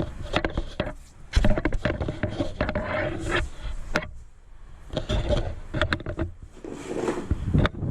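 Scraping, rubbing and small clicks of hands working on a soundbox's panel while swapping its sticker, with a few brief squeaks in between.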